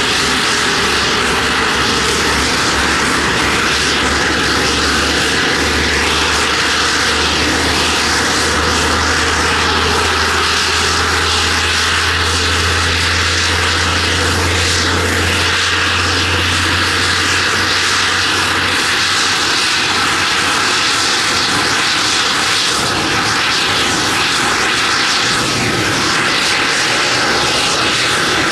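Boeing C-17A Globemaster III's Pratt & Whitney F117 turbofan engines running on the ground after start: a loud, steady jet noise with a high whine. A low hum underneath fades out about two-thirds of the way through.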